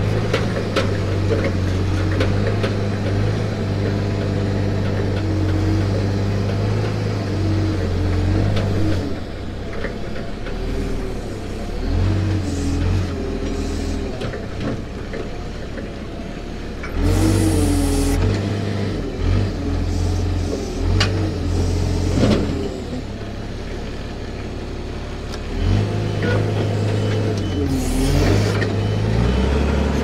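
Forklift engine running as the machine drives and manoeuvres, its pitch rising and falling with the throttle. Two short rushes of noise come about 17 seconds in and again near the end.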